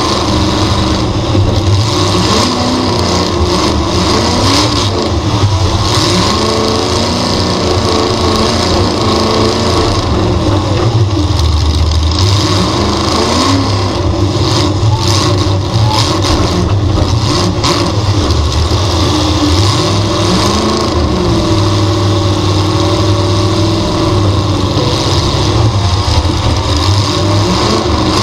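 V8 dirt-track race car engine heard from on board, running loud, its pitch rising and falling again and again as the throttle is worked.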